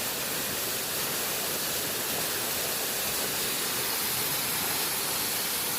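Steady rushing of flowing water, an even noise with no breaks or changes.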